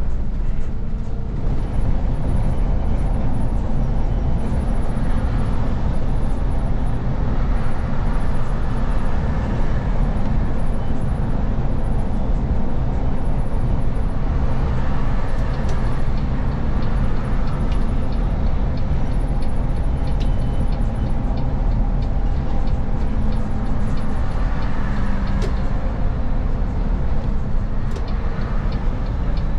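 Service bus being driven along a road, heard from inside the driver's cab: engine running and tyre and road noise in a steady low rumble.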